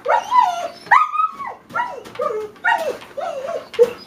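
Dog whining and yipping in a quick run of about six short, wavering calls during tug-of-war play with a sock.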